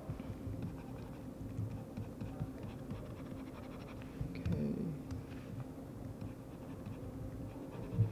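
Faint scratching and light ticks of hand work at a computer desk over a steady low hum, with a short spoken "okay" about halfway.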